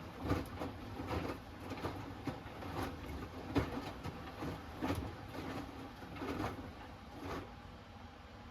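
Hoover Axi 10 kg washing machine drum tumbling a wet load on its Rapid 30 programme: rhythmic swishes of laundry and water about once a second, stopping about seven and a half seconds in.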